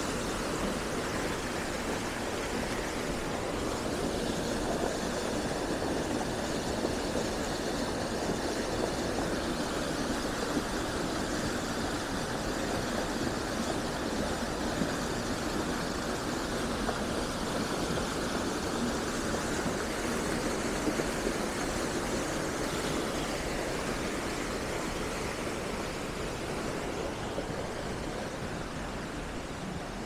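Mountain stream rushing steadily over large rocks and pouring into a natural pool, slightly quieter near the end.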